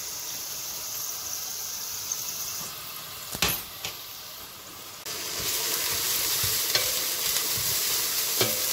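Chopped red onions sizzling in hot cooking oil in a stainless steel pot, with one sharp knock about three and a half seconds in. About five seconds in the sizzle gets suddenly louder as a wooden spoon stirs the onions.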